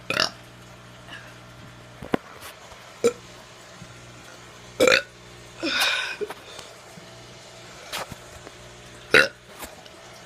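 A teenager burping over and over: short burps a couple of seconds apart, some loud and some faint, with one longer, drawn-out burp about six seconds in. A steady low hum runs underneath.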